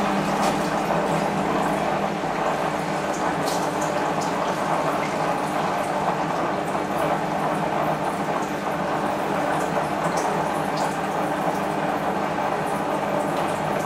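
Zanussi Super Jetsystem front-loading washing machine in a rinse, its drum turning the wet laundry with a steady sound of rushing, sloshing water.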